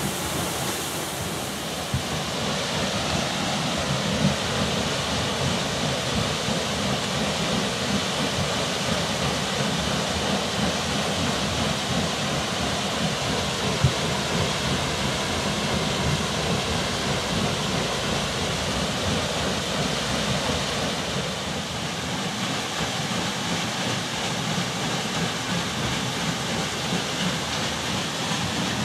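Watermill water wheel turning under a stream of water, with a steady rush of splashing, falling water and a low rumble, and a few brief knocks.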